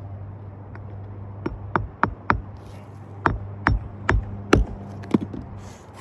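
About ten sharp hammer knocks at an uneven pace, the loudest a little past the middle, over a steady low hum.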